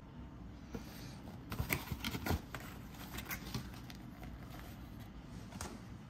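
Light rustling and small taps from a cardboard tea box and a tea bag being handled and dropped into a ceramic mug. The sounds are busiest about a second and a half in, with a few softer clicks afterwards.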